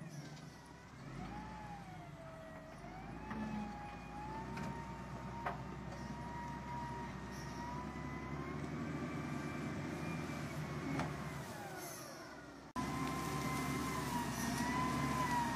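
Diesel engine of a front-end wheel loader running under work, a low steady hum with a high whine that wavers up and down. It cuts out abruptly near the end and comes back louder.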